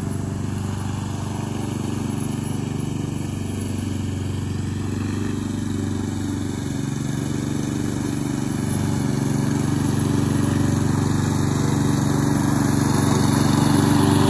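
Gas lawn mower engine running steadily while mowing grass, its hum growing slightly louder over the second half as the mower comes closer.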